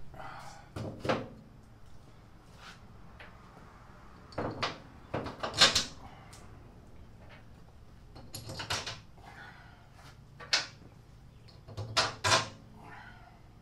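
Metal clinks and clunks of the bearing hub and its bolts being fitted into a steel rough-cut mower deck by hand: scattered sharp knocks in small clusters, the loudest about halfway through.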